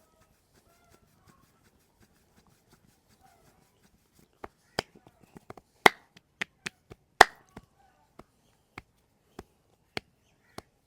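Sharp smacks and cracks of a hands-on head, neck and back massage: a quick irregular run of loud smacks about halfway in, then single smacks at an even pace of a little under two a second.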